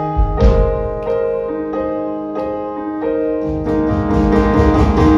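Stage keyboard playing a live piano passage, chords struck about every two-thirds of a second and left to ring. The low end fills in more about three and a half seconds in.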